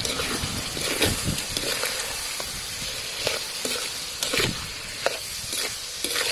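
Chopped pig's tongue sizzling as it is stir-fried in a large steel wok, with a metal spatula scraping and knocking against the pan again and again as the pieces are turned.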